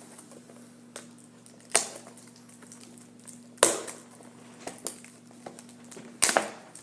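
Tough plastic packaging of a trading-card box being pried open: three sharp cracks, about two seconds in, in the middle and near the end, with smaller clicks between, over a steady low hum.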